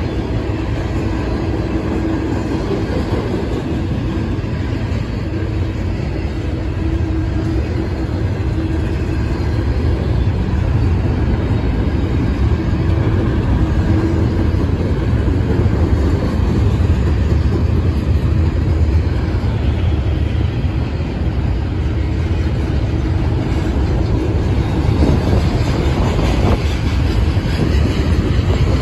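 Double-stack intermodal container cars of a Norfolk Southern freight train rolling past, a steady rumble of steel wheels on rail that grows a little louder about ten seconds in.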